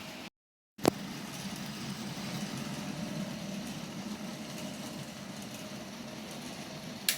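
Bachmann Class 37 OO-gauge model diesel locomotive running along the track: a steady small-motor hum with wheel noise on the rails, a little louder around the middle. A brief cut to silence, then a sharp click about a second in and another near the end.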